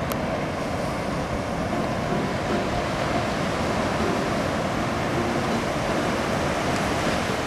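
Steady roar of ocean surf breaking, a continuous wash of noise that begins to fade out at the very end.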